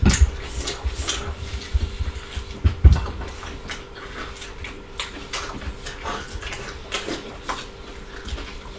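Close-miked chewing and mouth sounds of people eating fried pork ribs and rice with their hands: many short wet smacks and clicks, with a low thump about three seconds in and a faint steady hum underneath.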